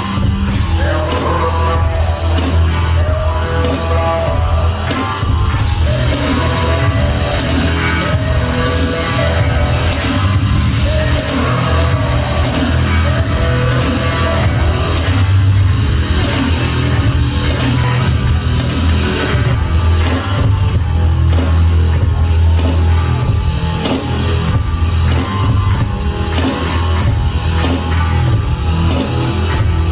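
Hard rock/heavy metal wrestling entrance theme with distorted electric guitars, bass and a steady driving drum beat.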